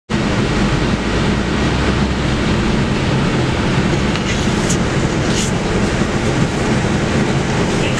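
Cabin noise of a Mercedes-Benz O500LE city bus under way: its 7.7-litre OM936LA six-cylinder diesel running steadily under road and body noise, with a few faint high ticks about halfway through.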